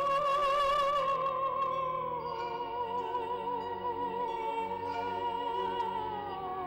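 Background music: an operatic voice holds one long note with strong vibrato over a soft accompaniment. The pitch steps down slightly about two seconds in and drops again near the end.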